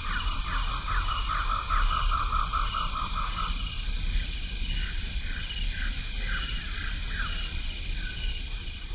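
An animal's repeated short, falling calls, in a fast run of about five a second that breaks up into scattered single calls about halfway through, over a steady high-pitched drone and a low wind rumble on the microphone.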